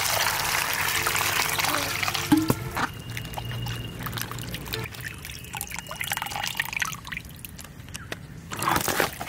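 Water poured over quartered cabbage in a pot: a steady splashing pour for about the first three seconds, then softer splashes and wet rubbing as the pieces are washed by hand.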